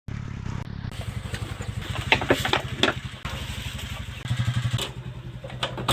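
A small engine idling with a fast, even putter, and a few knocks and rattles about two to three seconds in.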